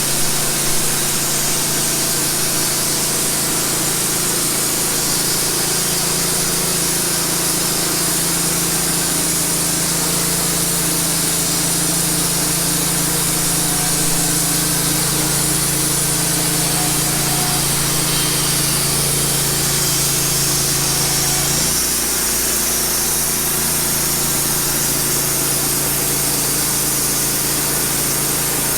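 Wood-Mizer LT15 band sawmill running and sawing through a cedar log, its engine and blade making a steady loud drone. About two-thirds of the way through, the engine note drops slightly.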